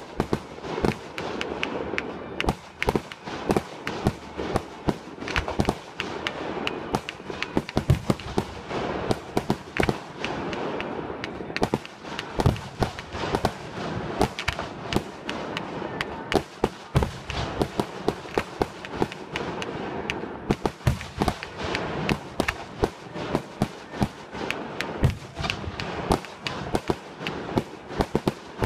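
Aerial fireworks shells bursting in a rapid barrage: many sharp bangs a second, mixed with crackling.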